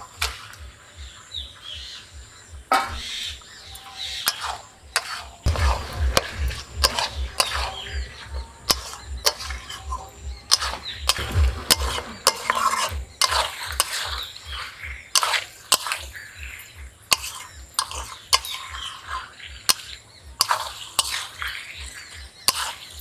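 Raw chicken pieces tipped from a steel bowl into a metal kadai of masala, then a wooden spatula stirring and turning them, with irregular clacks and scrapes against the pan.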